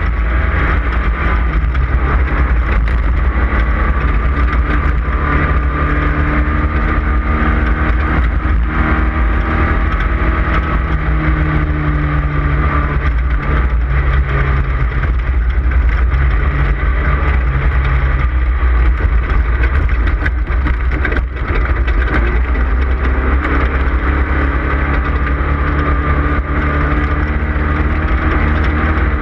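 Off-road race car's engine running hard at race speed. Its note steps up and down a few times as the driver works through the gears and the throttle.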